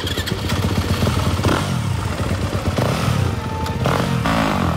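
Yamaha YZ250F's single-cylinder four-stroke engine running just after starting, its revs rising and falling a few times.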